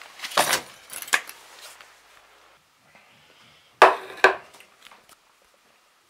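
A few sharp knocks and clatters in the first second, then two loud knocks about half a second apart around four seconds in.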